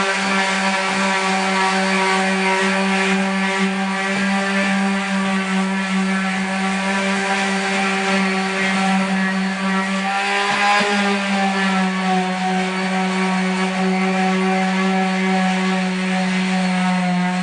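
Power sander running steadily as it sands dried drywall joint compound, a loud motor whine with a slight dip in pitch about ten seconds in.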